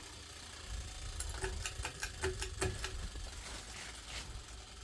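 Ceiling fan running at speed: a steady low motor hum with a scatter of light clicks and rattles in the middle seconds.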